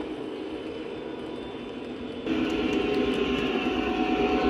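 Lionel O gauge model train running on three-rail track: a steady rolling rumble as freight cars pass. About two seconds in it steps suddenly louder and keeps growing toward the end as the Lionel F40PH locomotive approaches.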